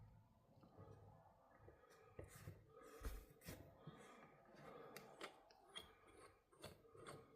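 Faint, scattered clicks and light taps of small hobby parts being handled while a scale model engine is fitted onto a small steel clamp vise, with one sharper knock about three seconds in.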